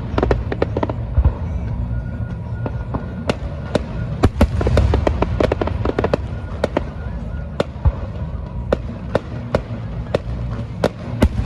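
Fireworks display: many sharp bangs and crackles going off in quick, irregular succession over a steady low rumble.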